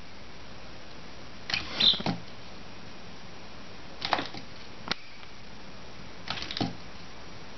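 Young chick pecking at a cardboard box flap and a strip hanging from it: scattered sharp taps in small clusters, a second or two apart.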